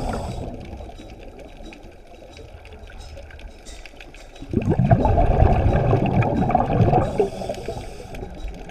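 Scuba divers' exhaled bubbles heard underwater through a camera housing: a muffled rush of bubbling about four and a half seconds in, lasting about two and a half seconds, with a quieter stretch before it.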